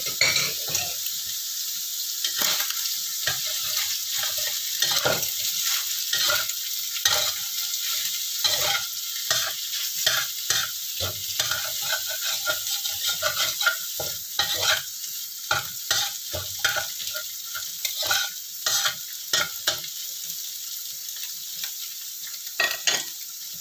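Scrambled egg and sliced sausage sizzling in oil in a wok, with a spatula repeatedly stirring and scraping against the pan.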